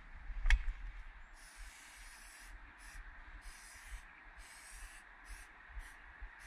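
Aerosol spray paint can spraying in hissing bursts: a sharp click just after the start, then a hiss of about a second followed by about five shorter ones.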